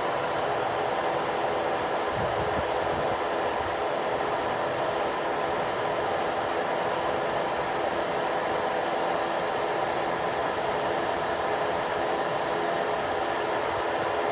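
Husqvarna DXR 140 demolition robot's electric motor and hydraulic pump running steadily, a constant whine over a hiss.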